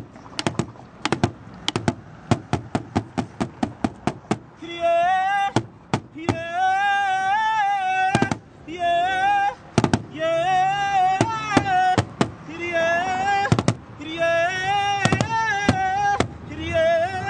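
Large cowhide-headed drum struck with two sticks in a steady beat. After about four seconds a high, wavering voice comes in over the strokes, singing in long phrases with short breaks.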